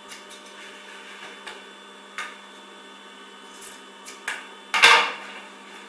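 Scissors snipping through the thick velour seam corners of a cushion cover: a few separate snips, the loudest about five seconds in.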